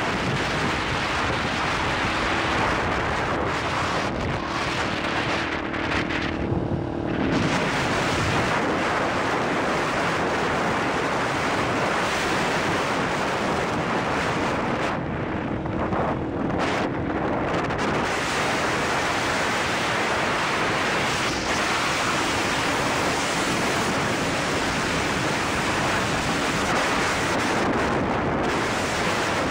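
Wind buffeting the microphone of a camera held on a moving motorcycle: a loud, steady rush of noise. The motorcycle's engine hum shows faintly underneath at times.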